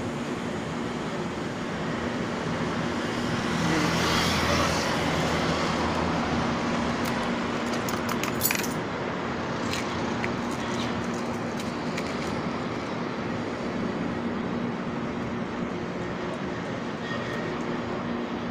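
Steady city road traffic with a low engine hum, and a vehicle passing louder about four seconds in. A few light clicks and rattles come around the middle.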